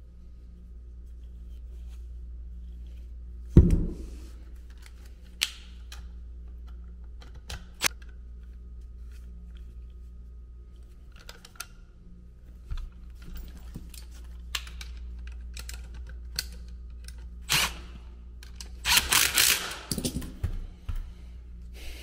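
Scattered clicks and knocks of an ECM blower motor, its metal mounting bracket and hand tools being handled, with one loud knock about three and a half seconds in and a burst of clattering near the end. A steady low hum runs underneath.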